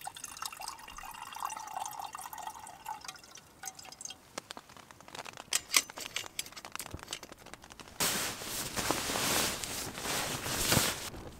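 A light watery trickling at first, then sharp metallic clinks as an aluminium kettle is set onto a lit Trangia stove, the loudest about six seconds in. Near the end, a few seconds of loud rustling of nylon fabric as the camper moves about.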